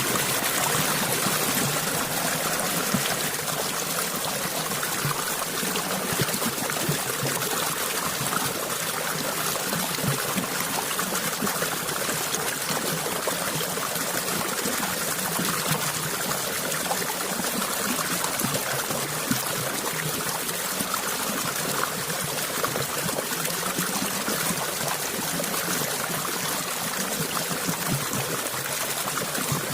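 Shallow stream of water flowing and trickling steadily, a constant rushing splash with fine bubbling detail.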